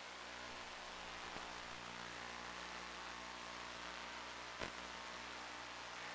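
Steady hiss with a low, constant hum, the static of an analog FPV video link's audio channel rather than the plane's motor. There is one sharp click about four and a half seconds in.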